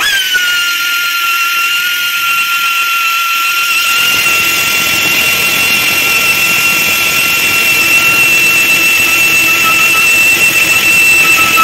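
High-speed rotary tyre buffer whining steadily as it roughens the inner liner around a puncture before patching; the pitch dips as it starts and then holds, and about four seconds in a rough grinding noise joins as the buffer bites into the rubber.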